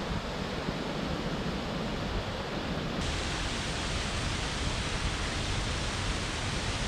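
Steady rushing of a mountain waterfall cascading over rocks, a constant even hiss that turns a little brighter about three seconds in.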